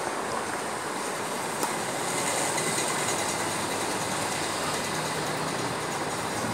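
Steady rushing background noise, a little louder about two seconds in.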